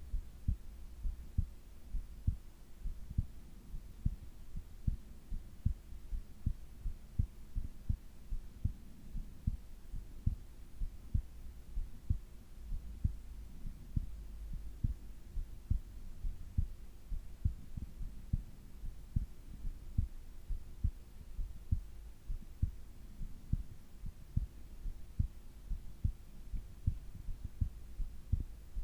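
Human heartbeat of a sleeping person, picked up close to the chest: a steady, regular beat of about one a second, each beat a doubled low thump (lub-dub), over a low rumble.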